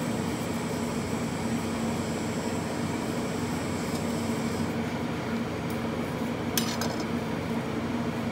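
Steady mechanical hum with a fixed low tone; a faint high whine over it stops a little before five seconds in. One sharp clink of kitchenware comes about six and a half seconds in.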